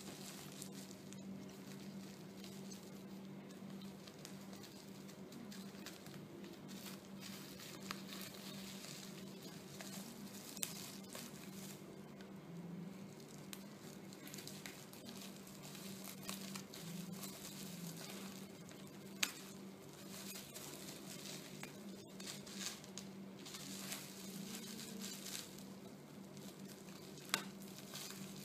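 Faint rustling and crinkling of a CD album's paper and packaging being handled, with a few sharp clicks, over a steady low hum.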